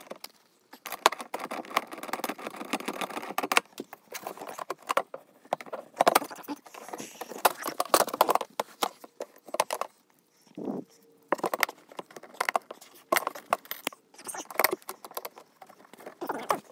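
Small metal hardware clicking and rattling as bolts and nuts are handled and fitted into a plastic cart bed: many irregular clicks, with short pauses about ten and fourteen seconds in.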